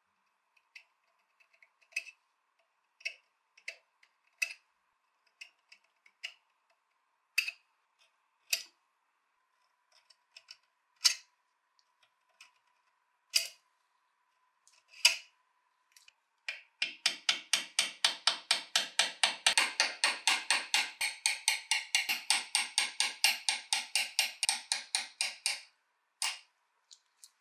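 Steel scribe and marking gauge clicking against a steel wrench held in a vise: scattered sharp ticks and clicks, then a fast, even run of short scratching strokes, about four or five a second, for roughly nine seconds, as the scribe is drawn back and forth across the metal. A faint steady high hum runs underneath.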